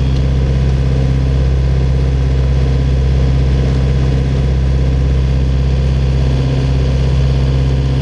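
A sailing yacht's inboard diesel engine running at a steady speed, a constant low drone heard from inside the cabin below deck.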